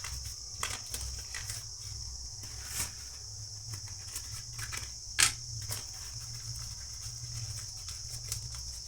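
Light clicks and taps from handling small electronic parts at a repair bench, with one sharper click about five seconds in, over a steady high-pitched hiss and low hum.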